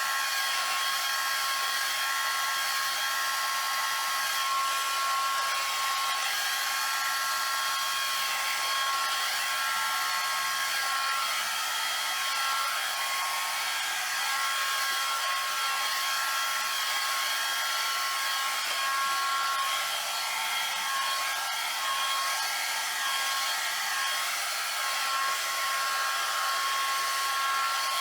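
Hair dryer fitted with a tapered nozzle, blowing steadily: a steady rush of air with a thin, steady whine on top.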